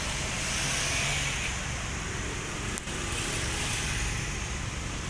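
Steady street noise with a low rumble of road traffic, and one sharp click a little under three seconds in.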